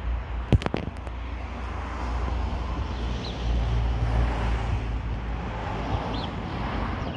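Outdoor background rumble, deep and uneven in strength, with a few sharp clicks about half a second in and two faint short chirps later on.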